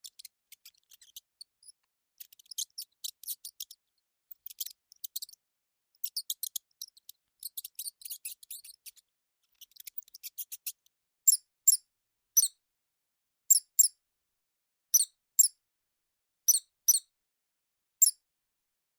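Mouse squeaking: fast clusters of thin, high-pitched chirps for the first ten seconds or so, then louder, clearer squeaks, mostly in pairs, about every second and a half.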